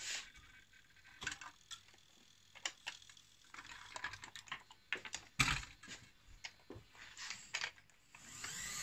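Scattered light clicks and knocks of a plastic Siku model tipper trailer being gripped and lifted off a hard worktop by hand.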